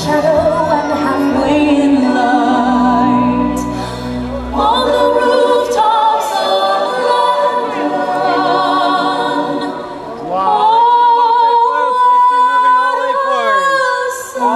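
Orchestral music with a choir singing long, wavering held notes, with a few sharp firework cracks about four and six seconds in.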